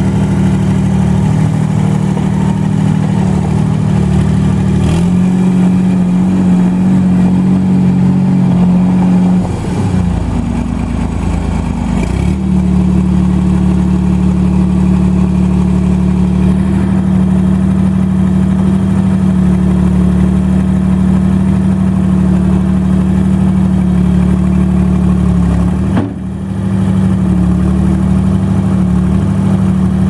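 Deutz three-cylinder turbo diesel engine of a 1999 Gehl 4835 SXT skid steer running steadily while the machine is worked. The engine note steps up in pitch about five seconds in, wavers and drops around ten to twelve seconds in, and dips for a moment near the end.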